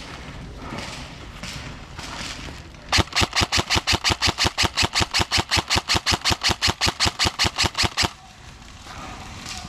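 Airsoft gun firing a fast, even string of about thirty shots, roughly six a second, starting about three seconds in and stopping abruptly some five seconds later.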